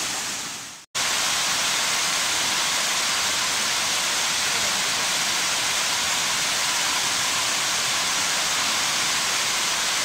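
Waterfall: a steady rush of water falling down a rock face. It fades out to a moment of silence just under a second in, then resumes and holds steady.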